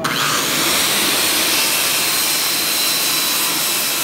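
Circular saw switched on, spinning up within a fraction of a second and then running at a steady whine, its blade cutting into a timber beam.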